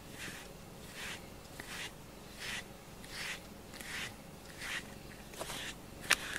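Rubber grooming brush stroking through a cat's fur: a soft swishing rasp repeated about once every 0.7 seconds, with a sharp click near the end.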